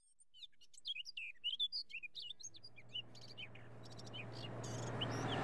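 Songbirds chirping in quick, twittering calls. From about halfway a low truck engine drone comes in and grows steadily louder as the truck approaches.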